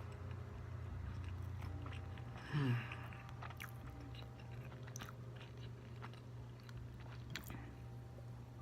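Close-miked chewing and biting of a barbecue rib sandwich, with scattered wet mouth clicks. About two and a half seconds in there is a short falling voiced hum. A steady low hum runs underneath.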